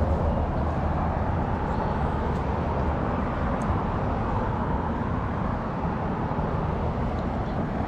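Steady low rumble of vehicle noise, unchanging, with no distinct knocks or events.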